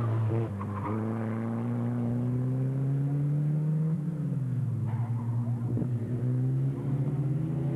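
Single-seater racing car's engine working through a slalom course. The revs climb gradually, drop sharply about four seconds in, then climb again.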